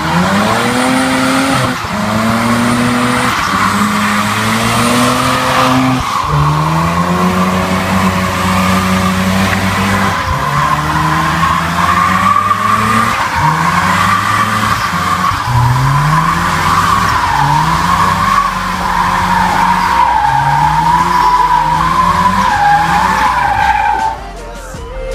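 Mazda RX-7 Turbo's 13B twin-rotor rotary engine revving up and dropping back over and over while its rear tyres squeal steadily in a sideways spin. The squeal stops about a second before the end.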